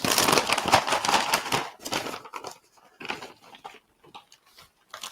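Plastic food bags crinkling and rustling as they are handled, dense for the first two seconds or so, then scattered crackles.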